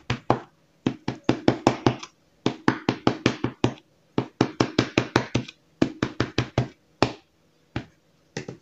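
A fork pricking puff pastry in a parchment-lined tart pan: quick, sharp taps of the tines going through the dough onto the pan beneath. The taps come in fast runs of about four or five a second with short pauses, and thin out to a few single taps near the end.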